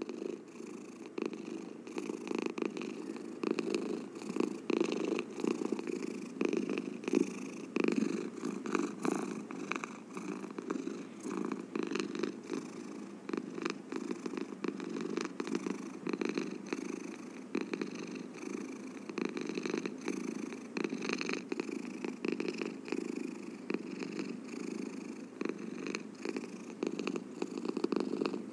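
A domestic cat purring steadily, a continuous low rumble that swells and eases.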